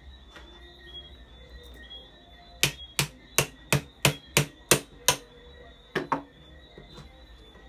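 A run of sharp hammer strikes during a fan motor repair: eight quick taps, about three a second, then a pause and two more close together.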